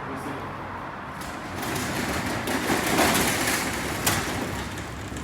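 Sliding security door on a CNC bridge saw rolling along its track, a rising rumble and rattle that ends in a knock about four seconds in.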